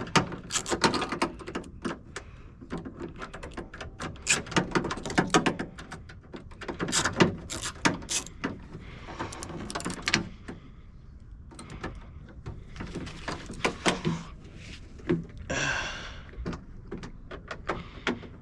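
Tools and metal hardware clicking, tapping and knocking irregularly inside a car door panel as bolts are worked loose with a socket extension, with a short scraping rasp about three-quarters of the way through.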